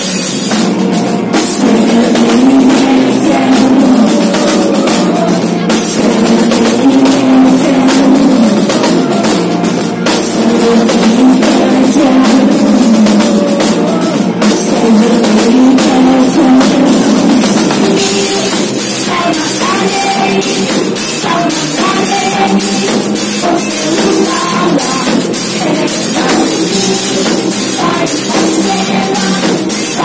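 A live band playing a loud rock song, with a drum kit keeping the beat under keyboards and a woman's voice at times. A little over halfway through, the long held notes give way to shorter, choppier ones.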